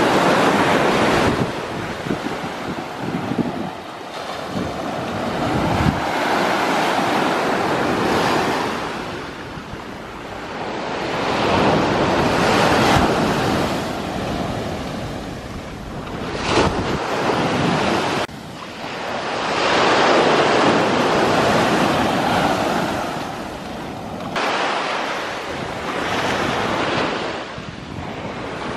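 Rough sea surf: waves breaking and washing ashore, the rush swelling and fading every few seconds, with wind buffeting the microphone.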